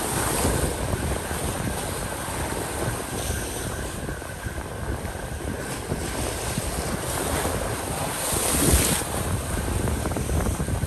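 Ocean surf washing and breaking along a rocky shore, with wind rumbling on the microphone; a louder wash of surf comes about eight seconds in.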